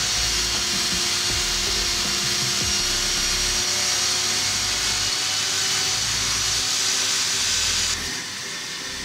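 Table saw ripping a narrow hardwood strip along the fence, the blade cutting steadily with a loud, high-pitched hiss. About eight seconds in the cut finishes and the sound drops as the blade spins on freely.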